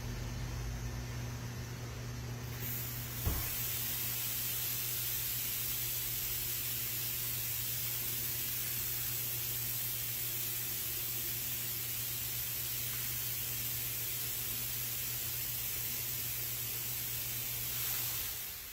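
Automatic car wash machine running with a steady hum; a few seconds in, its water spray starts with a loud, even hiss and a single click, and keeps spraying until it cuts back near the end.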